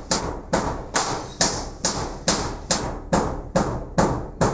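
A steady, even run of sharp knocks, a little over two a second, each dying away quickly.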